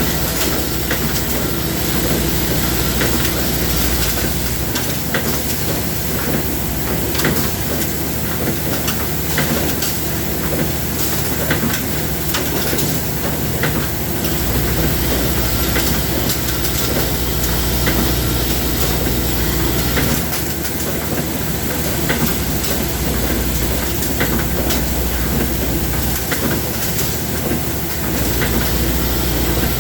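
Steady machine noise: a continuous hiss over a hum, with scattered clicks. A deep low hum cuts out and comes back several times.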